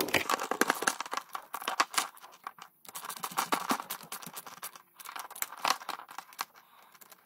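Stainless worm-drive hose clamp being tightened with a nut driver over a hose barb: a run of quick, irregular clicks and scrapes as the screw turns against the band, with a couple of short pauses.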